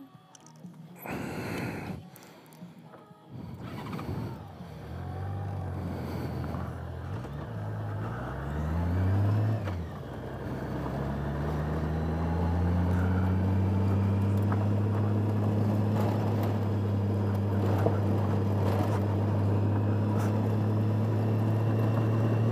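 Motorcycle engine pulling away, its revs climbing and dropping a few times before settling into a steady, slowly rising note as the bike gets up to speed.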